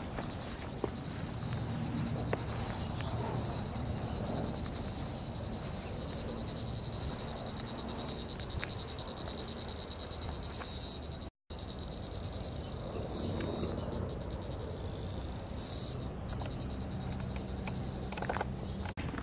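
Cicadas buzzing in the trees: a steady, high, rapidly pulsing chorus that swells and fades every few seconds. The audio drops out for a moment just past halfway.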